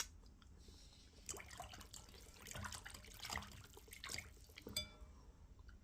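Quiet, wet smacking and squelching of eating: slimy okra stew and fufu being chewed and worked by hand, in irregular sticky clicks.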